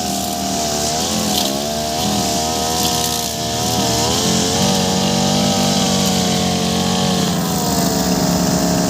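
Two-stroke brush cutter running under load, fitted with a steel wire cable as its cutting line; the engine pitch dips and recovers several times as it cuts through grass, then holds steadier.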